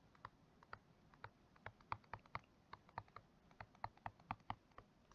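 Faint, irregular taps of a stylus on a touchscreen while handwriting a word, about three or four light clicks a second.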